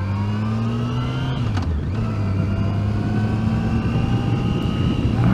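Yamaha FJR1300's inline-four engine pulling under acceleration: its pitch climbs, drops sharply with a gear change about a second and a half in, then climbs again and levels off near the end, over a rush of wind.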